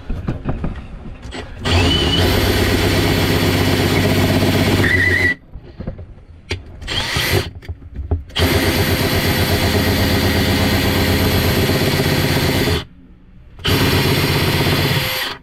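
Makita cordless drill boring a hole through a panel, run in three long bursts with short stops and a couple of brief trigger blips between.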